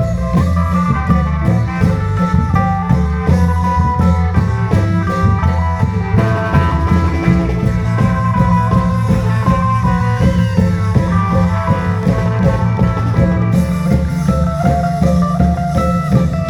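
Isan klong yao band music: long drums beating a steady, dense rhythm under a stepping melody in the style of the khaen.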